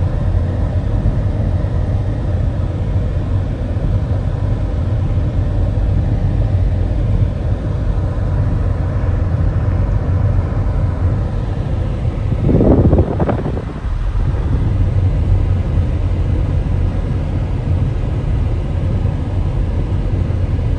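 Car driving down a steep mountain road, a steady low engine and road rumble, with a short louder rush about twelve seconds in.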